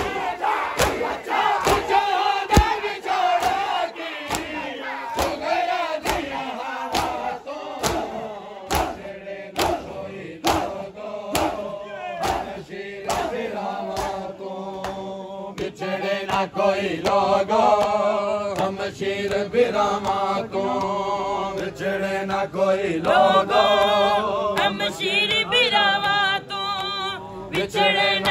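Crowd of men doing matam, slapping their bare chests in unison at about two beats a second, with shouted crowd chanting. In the second half the group chanting of the noha grows stronger and the beating thins out.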